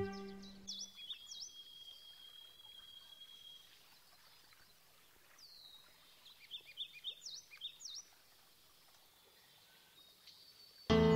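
Songbirds chirping faintly: a few quick high chirps, one held whistle lasting a couple of seconds, then a flurry of rapid chirps in the middle. Soft music fades out at the start and comes back in near the end.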